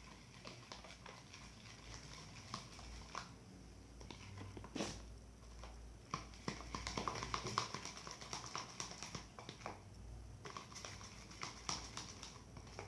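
Faint scattered clicks and small taps while slime ingredients are handled, busiest about halfway through and again near the end.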